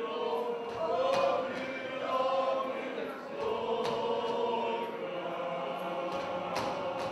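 A group of voices singing together in a folk chant style, holding long notes, during a round kolo dance. Sharp stamps, most likely the dancers' feet striking the floor, come a few times, roughly every two to three seconds.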